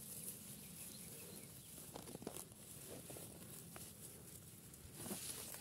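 Faint rustling and light crackling of dry grass and weed stems as a hand pushes through them, with a few soft clicks about two seconds in.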